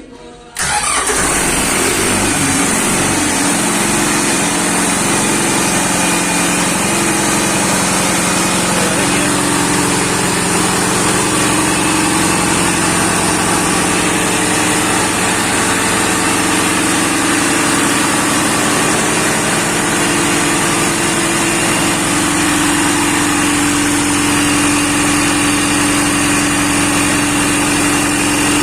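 A Clarke engine, just repaired, comes to life suddenly about half a second in, its pitch settling over the first few seconds, then runs loud and steady at a constant speed.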